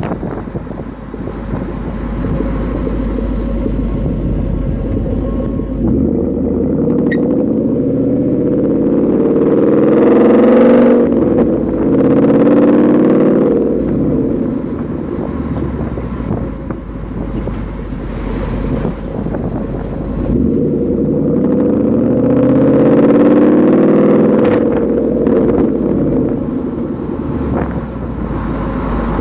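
2013 Ford Mustang GT's 5.0-litre Coyote V8 heard at the Borla S-Type axle-back exhaust tip while driving: a low rumble at cruise, then two accelerations, about six seconds in and again about twenty seconds in, each rising in pitch as the engine revs up.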